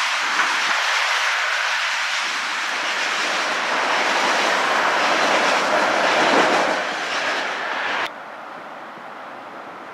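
Electric passenger train running across a railway bridge, the rumble of wheels on rail growing louder. It cuts off abruptly about eight seconds in, leaving a quieter steady hiss.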